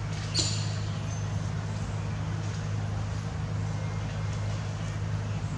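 A steady low engine-like hum runs throughout, with a short scratch or click about half a second in.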